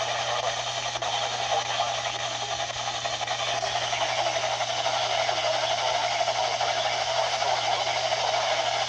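Steady hiss of radio static from a receiver's small speaker, with a low hum underneath.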